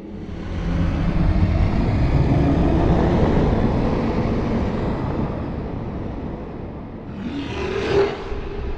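Horror sound effect: a deep rumbling noise that swells up over the first second, holds, and slowly dies away, then a shorter, brighter swell near the end.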